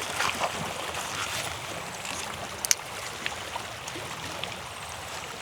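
Creek water flowing steadily, with one sharp click a little past halfway.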